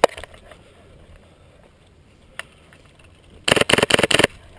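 Airsoft rifle shots: a single sharp shot at the start, a fainter one about two and a half seconds in, and near the end a rapid full-auto burst of about half a dozen shots lasting under a second.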